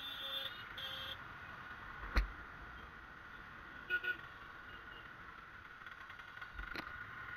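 Motorcycle riding through city traffic, heard from a helmet camera: steady engine and road noise, with two short vehicle-horn toots at the start and a quick double beep about four seconds in. A sharp knock comes about two seconds in and another near the end.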